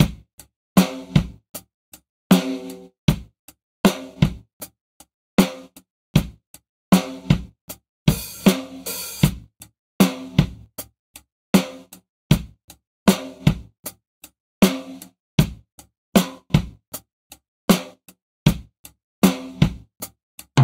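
A recorded drum kit (kick, snare, hi-hat and cymbals) plays back in a steady groove of sharp hits with short gaps between, through a 670-style vintage tube compressor plugin. A cymbal wash rings out about eight seconds in.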